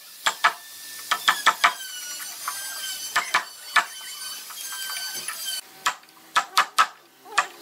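Wooden mallet striking a wooden-handled chisel, chopping a mortise into a hardwood bed board: sharp knocks in quick, irregular clusters. A steady high whine runs behind the knocks and stops about two-thirds of the way through.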